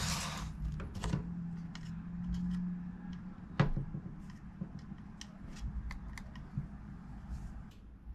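Small clicks and taps of repair tools and MacBook Pro parts being handled during a speaker replacement, with a short rustle right at the start and one sharper click about three and a half seconds in.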